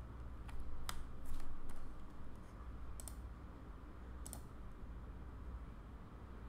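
Computer keyboard and mouse clicking: about five separate clicks in the first four and a half seconds, over a low steady hum.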